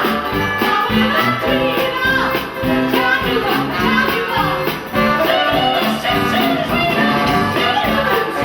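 Christmas stage-show music with singing over a steady beat.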